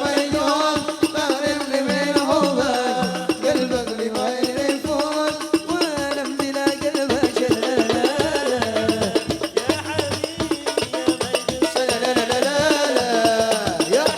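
Gambus-style Malay–Arabic music in an instrumental passage: an ornamented, winding melody line over a steady percussion rhythm.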